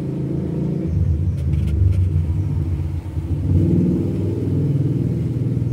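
A low mechanical rumble with a steady hum, swelling about a second in and again midway.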